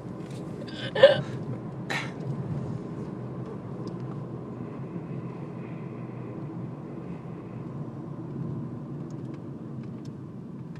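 A woman's loud burp about a second in, followed by a short, sharp sound about a second later, over a steady low rumble.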